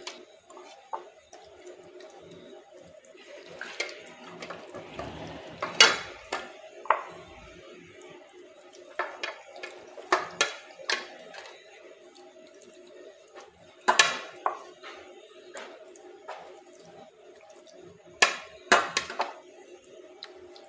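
A hand rubbing marinade paste over a whole chicken on a stainless steel plate, the plate clinking and clattering now and then. The loudest knocks come about six, ten, fourteen and eighteen seconds in, over a steady low hum.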